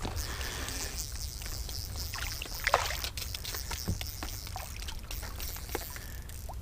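Water sloshing and trickling against a small boat's hull, with scattered small knocks and clicks, one louder near the middle, over a steady low rumble.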